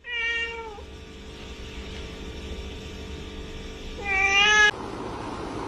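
Cat meowing twice: a short meow falling in pitch at the start, then a louder meow about four seconds in.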